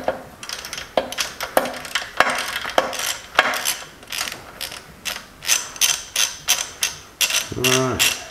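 Hand ratchet wrench clicking in quick runs as it winds out a centre locating screw from a VW Beetle front beam's torsion tube, the screw that holds the torsion bar spring pack in place.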